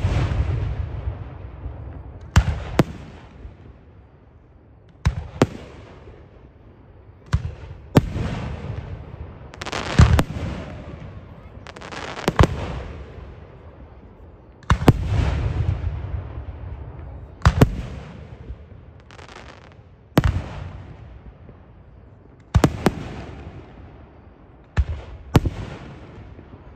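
Aerial fireworks shells bursting one after another: a sharp bang about every two to three seconds, some in quick pairs, each followed by a rumbling echo that fades over a second or two.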